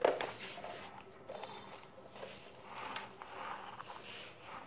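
Scissors cutting through cardboard in several separate cuts, with a sharp click at the start.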